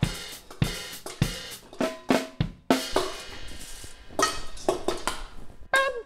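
Drum music: a drum kit beat with regular hits and cymbals, ending in a run of ringing pitched drum hits that dip slightly in pitch.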